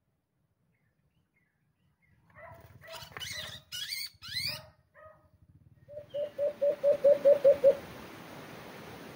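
Near silence at first, then a few short rising squealing calls, followed by a quick run of about nine even, hooting notes from a dove, the loudest part; a steady hiss follows near the end.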